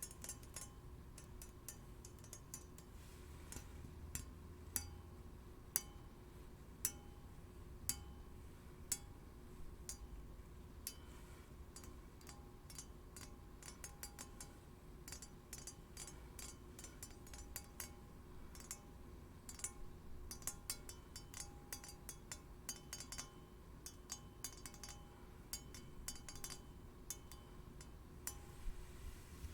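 Steel blades clinking and tapping lightly against each other: a quiet run of small metallic clicks with a few sharper taps, and now and then a faint ringing tone.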